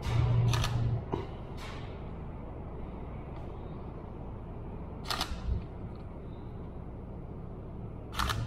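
Camera shutter firing three times, sharp clicks a few seconds apart, over a steady low rumble of city background noise.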